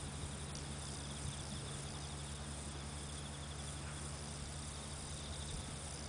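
Insects trilling steadily in grassland, a fast high pulsing, over a low steady hum.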